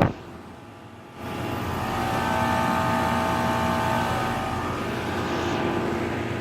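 2018 Daikin 5-ton central air conditioner condenser running in cool mode: a steady rush from the condenser fan with the hum of the Copeland scroll compressor, made up of several steady tones. It is quieter for the first second, then comes in fuller and holds steady.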